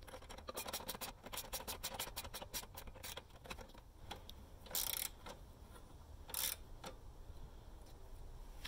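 Ratchet wrench clicking as a bolt is tightened against an Allen key, about five quick clicks a second for the first three seconds. Two brief rustling noises follow, around the middle and later on.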